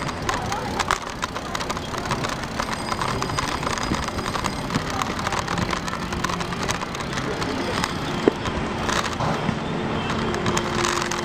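IF Move folding bicycle rolling along a paved cycling track: steady tyre and wind noise with a constant light rattling and clicking from the bike over the surface.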